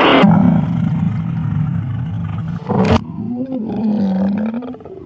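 Night Fury dragon film sound effect: low, rumbling growls, with a short sharp burst a little past the middle and a wavering growl after it.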